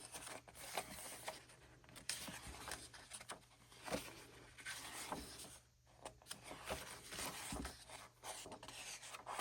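Pages of a photo book being turned and handled: soft paper rustling and rubbing, with occasional light taps.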